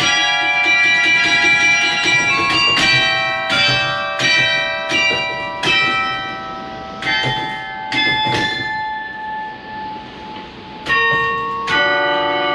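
Carillon bells of the Sint-Martinus church tower in Genk playing a slow melody: each note is a struck bell that rings on under the next, coming about one or two a second. Near the end the notes die away into a short lull before two louder strikes start a new phrase.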